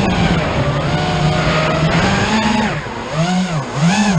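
FPV quadcopter's motors and propellers whining over a rushing hiss, the pitch wavering with the throttle, then swooping up and down twice in quick succession near the end.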